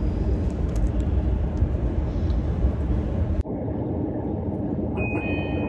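Steady low rumble of a train running, heard from inside the passenger car. It changes abruptly about halfway through to a quieter rumble, and near the end a high steady tone starts and stops a few times.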